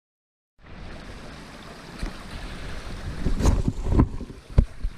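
Wind buffeting the microphone, a steady low rumbling hiss that starts about half a second in. Several dull thumps come near the end.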